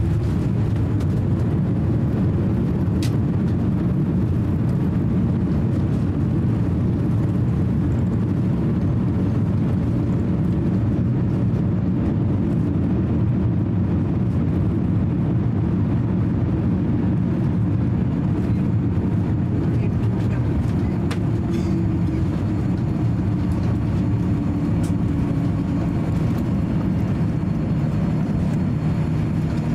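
Boeing 787-9 cabin noise during the landing roll: a steady low roar and rumble as the airliner rolls down the runway, with a few faint clicks.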